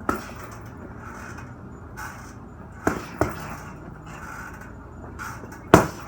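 Punches landing on a heavy punching bag in power drills: a few hard thuds spaced irregularly, a pair close together near the middle and the hardest one near the end.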